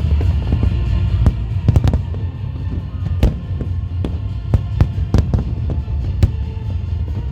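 Fireworks bursting: irregular sharp bangs, a dozen or so, over a steady low rumble of distant booms.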